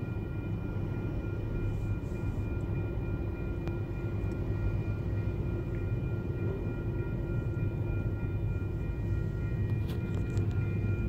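Steady low rumble of a freight train's diesel locomotives at a grade crossing, with a few steady high-pitched tones above it and a couple of faint clicks near the end.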